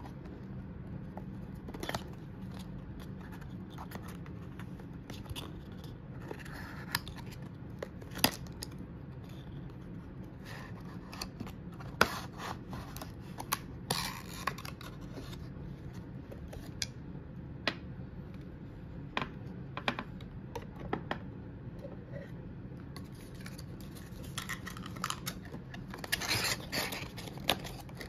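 A cardboard perfume box and its folding paperboard insert being handled and opened by hand: scattered light scrapes, rustles and sharp little clicks, in clusters rather than steadily, over a faint steady low hum.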